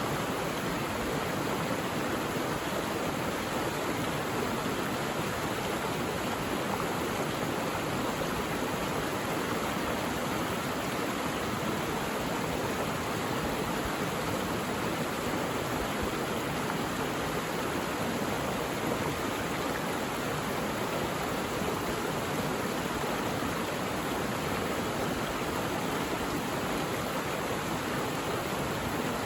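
Mountain valley stream, water rushing steadily and evenly.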